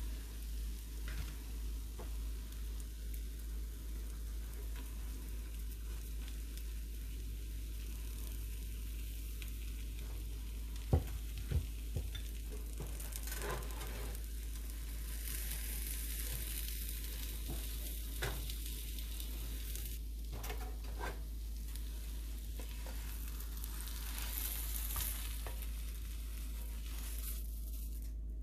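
Omelet frying in a nonstick pan, a steady sizzle with louder stretches as toppings go in, over a constant low hum. A couple of sharp knocks from the pan or utensils come about eleven seconds in.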